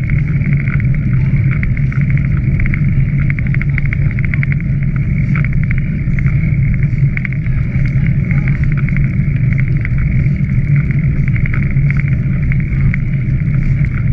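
Steady rumble and fast rattling of a bicycle ridden at speed along a gravel towpath, with wind on the microphone.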